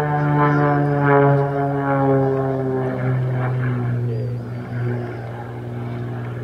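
Extra 300S aerobatic plane's six-cylinder Lycoming engine and propeller running hard in flight. The drone falls in pitch over the first few seconds, then levels off lower and a little quieter.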